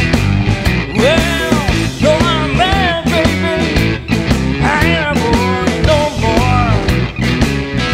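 Blues-rock band playing live: electric guitar with bending lead lines over bass guitar and a steady drum beat.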